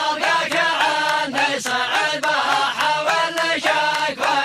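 A shaylah, a Gulf Arabic chanted love poem, sung by a male voice that is layered in several parts, over a steady percussive beat.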